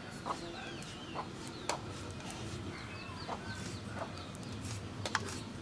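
Hens clucking now and then, with small birds chirping in short, quick calls over a steady low background.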